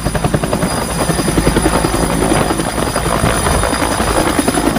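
Bell UH-1 Huey military helicopter lifting off low and climbing. Its two-bladed main rotor beats rapidly, about ten times a second, over a steady high whine.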